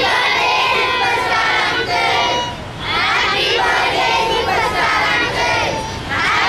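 Crowd of children and adults shouting and cheering together, in two long stretches with a short break between them.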